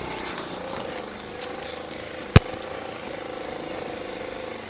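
Small ATV engine running steadily, with one sharp click a little over two seconds in.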